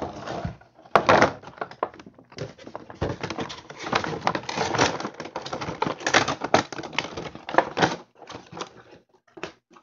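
Clear plastic packaging insert and cardboard window box crinkling and rustling while a vinyl figure is packed into it, a dense run of crackles and clicks that thins to a few separate taps near the end.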